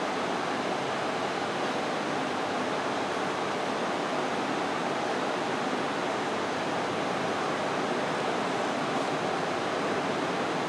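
Steady, even hiss of room noise, with no rhythm and no change.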